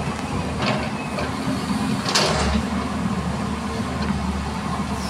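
A heavy diesel engine running steadily in a low drone, with two brief sharper noises, one under a second in and another about two seconds in.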